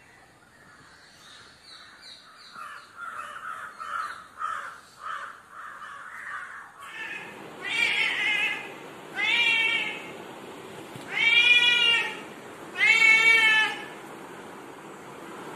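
A house cat meows loudly four times, each meow about a second long, begging for food. Before the meows, birds give a quick run of short calls.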